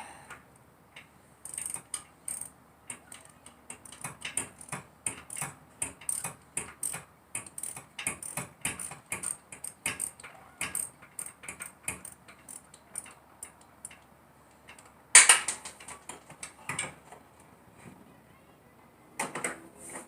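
Hand ratchet wrench clicking in runs of short strokes as a spark plug is worked out of the Mustang's V6 engine, then a sharp metal clank about fifteen seconds in and another near the end.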